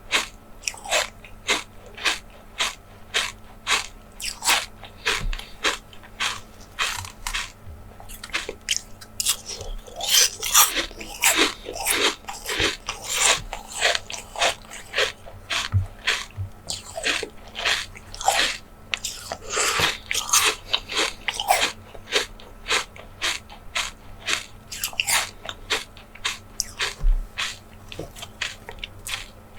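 Close-miked eating of jelly desserts: a steady run of crisp bites and chewing, about one or two a second, with busier, louder stretches of chewing around ten and twenty seconds in.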